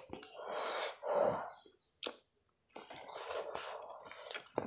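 Close-miked eating sounds: a long, noisy breath lasting about a second near the start, then a short pause with a single click, then soft chewing and mouth noises.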